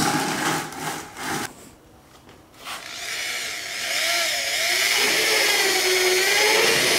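Corded electric drill with a paint-mixer paddle starting up about three seconds in, after a few light knocks, and running steadily as it blends used motor oil with diesel in a plastic bucket; its whine wavers slightly in pitch.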